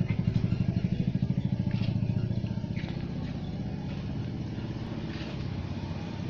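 A small engine running with an even putter of about ten beats a second. It is loudest in the first two seconds, then eases off and runs on steadily.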